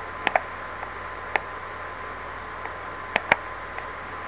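Computer mouse clicking: a few short, sharp clicks, a close pair at the start, a single one a little over a second in and another close pair after about three seconds, over a steady microphone hiss.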